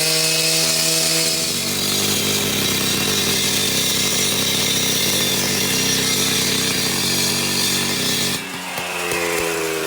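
Engine-driven concrete saw cutting into a concrete slab: a steady engine note under load with a harsh high grinding from the blade. About eight seconds in the grinding stops and the engine pitch rises.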